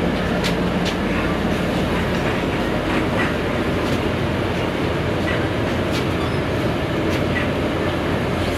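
Steady rumble of engine and road noise inside the passenger cabin of a Scania articulated bus, with a few sharp clicks scattered through it.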